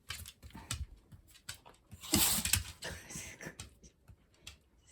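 A pet sneezing once, sharply, about two seconds in, after having its teeth brushed. Light clicks of claws on a wooden floor come and go around it.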